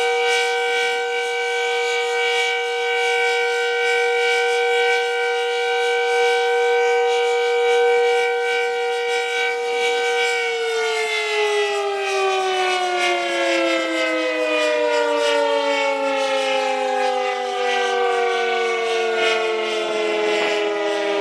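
Decot Red Arrow Model 12 electromechanical warning siren sounding a steady full-alert tone, then about halfway through it is switched off and winds down, its pitch sliding slowly lower.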